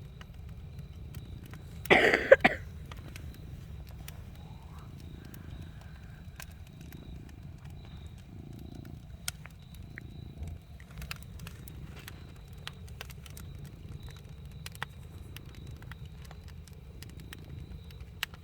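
Campfire crackling: scattered sharp pops and snaps over a steady low rumble, with a louder rushing burst about two seconds in.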